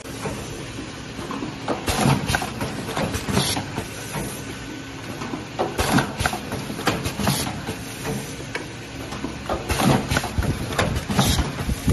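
GU10 LED bulb assembly machine running, its pneumatic press stations clacking and hissing in a repeating cycle, two strokes about every four seconds, over a steady machine hum.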